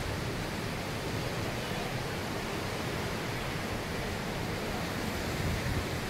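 Steady rushing of wind and water, with a low, uneven wind rumble on the microphone.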